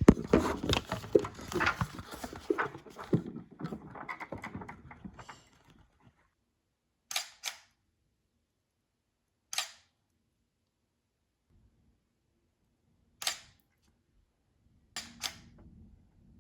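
A dense patter of sharp clicks and knocks that thins out and stops after about six seconds. Then, in silence, a few isolated sharp clicks, two of them coming as quick pairs.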